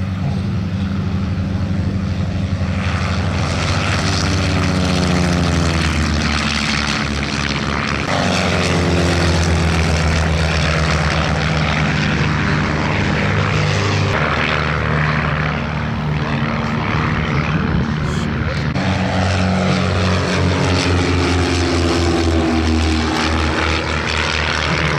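Single-engine propeller planes (Van's RV homebuilt aircraft) running at high power as they take off and fly past in pairs. The engine pitch slides several times as each group passes.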